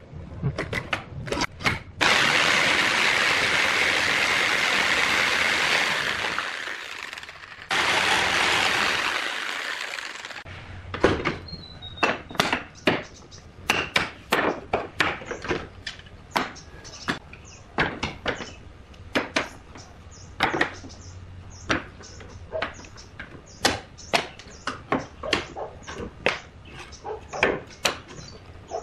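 Makita jigsaw cutting a small piece of hardwood in two steady runs of a few seconds each, separated by a short pause. Then many sharp, irregular wooden clicks and knocks as small wooden pieces are set down and shifted on a wooden tabletop.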